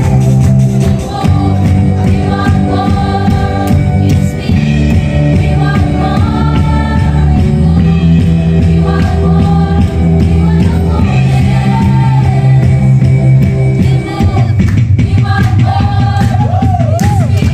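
Live worship band playing gospel music: several singers on microphones singing together over keyboard, electric guitar and drums. The music is loud and runs without a break.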